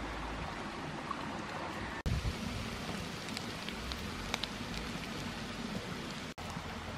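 Hot stir-fried minced snake meat sizzling in a blackened wok: a steady hiss with scattered small pops and crackles. It cuts out for a split second twice.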